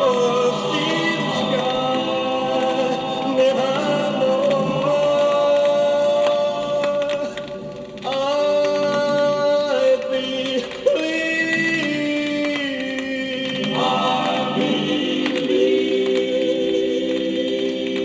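Vinyl LP playing a 1950s vocal record: a choir sings long, wordless chords in the song's closing bars, moving to a new chord about every three seconds.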